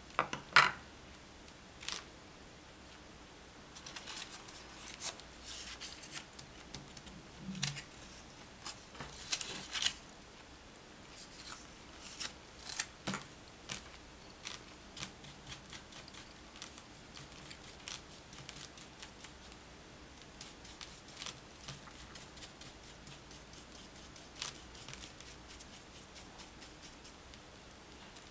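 A run of small clicks, taps and scratchy brushing from hand tools at work: a watercolour brush dipped in a glass water jar, worked on a ceramic plate and on crepe paper petals, and petals handled with tweezers. The loudest click comes just after the start.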